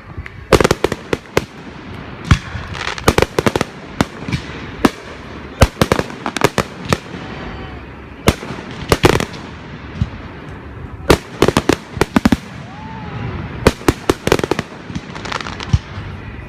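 Fireworks going off: clusters of sharp bangs and rapid crackling in quick succession, with several loud volleys.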